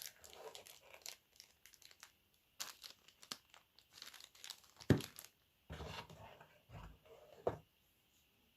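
Rustling and crinkling handling noise with scattered clicks and a few soft knocks, in irregular bursts.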